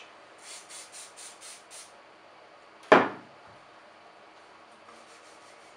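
Aerosol can of gun oil spraying in a quick run of short hisses, about five a second, onto a shotgun receiver, followed by a single sharp knock near the middle.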